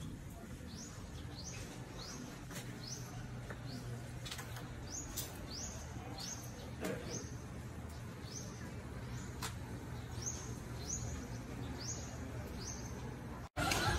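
A bird calling in short, high notes that each fall in pitch, two or three a second, in three runs, over a low steady hum and a few faint clicks.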